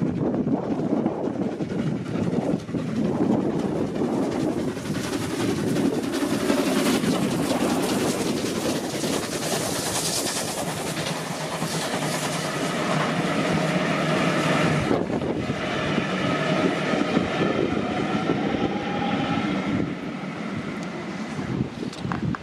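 Steam locomotive passing close by at work with a train of coaches, then the coaches' wheels rolling and clattering over the rail joints.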